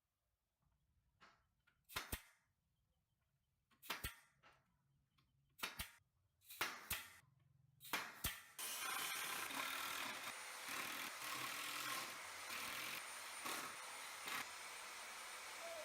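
Workshop handling sounds: a handful of sharp knocks or clacks, like wood and tools being set down, then a steady hissing noise from about eight and a half seconds in.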